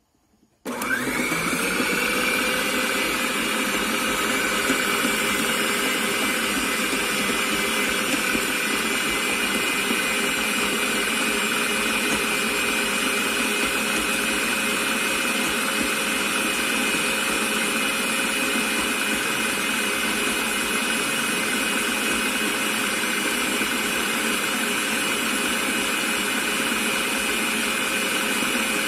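Electric stand mixer switching on under a second in, its motor rising briefly to speed and then running steadily, a continuous whine with several steady tones, as it beats a thick, half-frozen mango ice cream mixture.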